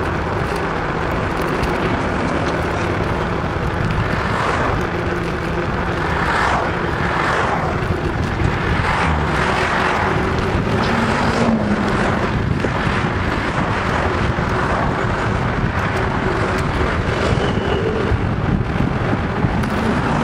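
Bicycle tyres humming on pavement with wind rushing over the bike-mounted microphone during a ride. Traffic on the adjacent road adds a series of passing whooshes in the middle stretch.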